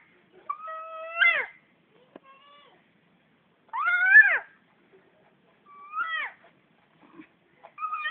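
A cat meowing: about four separate meows spaced a second or two apart, the loudest about four seconds in, rising and then falling in pitch.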